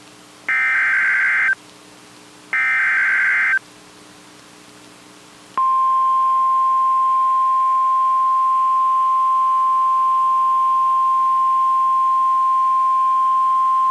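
Emergency Alert System SAME header: the last two of three repeated bursts of high-pitched digital warble, each about a second long with a second's pause between. About five and a half seconds in, the steady 1050 Hz NOAA Weather Radio alert tone begins and holds, announcing a new warning.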